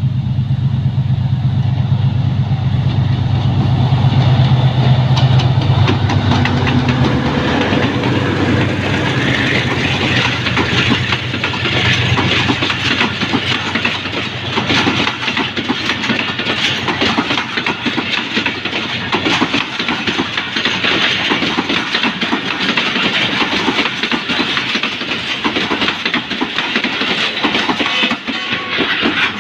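A GE C20EMP (GEU-20) diesel-electric locomotive's engine runs with a heavy low rumble as it approaches and passes, for about the first eight seconds. Then the passenger coaches roll by with a steady wheel-on-rail roar and a dense run of clicks from wheels crossing rail joints.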